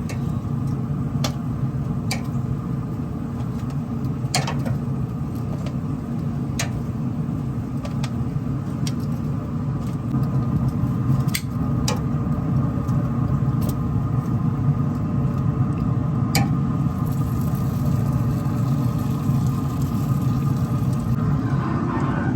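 A steady low mechanical rumble with a faint hum, overlaid by sharp metallic clicks every second or two as the chicken is lifted off the smoker grate with tongs.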